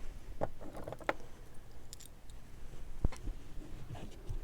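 Metal costume brooches being handled, giving a few light clicks and taps, the sharpest about one second and three seconds in.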